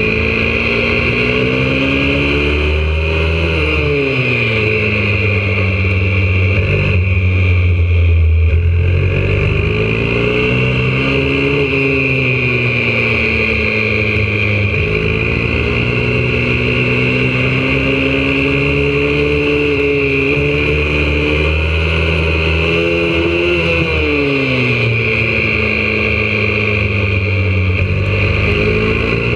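YCF 125cc four-stroke pit bike engine heard from onboard at speed, its pitch climbing under throttle and dropping sharply several times as the throttle is closed for corners, with a steady hiss underneath.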